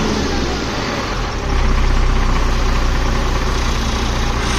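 A truck engine idling steadily, with a thick, deep exhaust note through its silencer. It gets slightly louder about a second and a half in.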